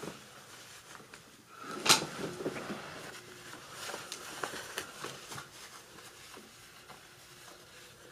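Denim jeans being handled and shaken out, with light rustling of the fabric and a single sharp knock about two seconds in.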